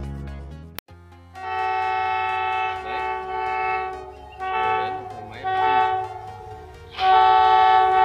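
Air horn of an approaching train sounding a series of blasts, each one a steady chord of several tones. There is a long blast, three short ones, then a louder long blast near the end. The tail of the intro music and a click come in the first second.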